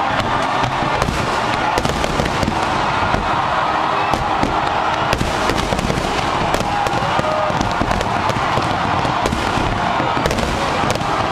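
Large fireworks display: a dense, continuous crackling and popping of many shells bursting at once, with frequent sharp bangs and no pause.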